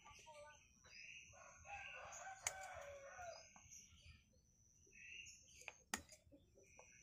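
Pruning scissors snipping bonsai twigs, two sharp clicks about two and a half and six seconds in. Under them is a faint, long bird call lasting about two seconds, falling in pitch at its end.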